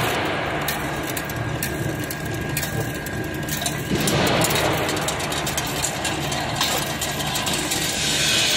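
Chain link fence weaving machine running on forward jog, its motor and gearing feeding and coiling steel wire, a steady mechanical noise with scattered clicks that grows louder about four seconds in.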